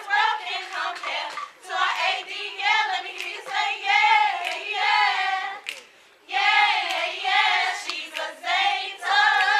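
Sorority line doing a probate chant: a group of women's voices chanting in unison in a sing-song rhythm, with sharp hand claps between phrases and a brief break about six seconds in.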